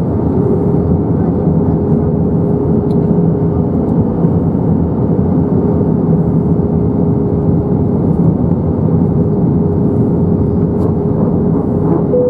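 Steady cabin noise inside an Airbus A321-231 in flight: the rush of air over the fuselage and the drone of its IAE V2500 turbofan engines, with a thin steady hum running through it.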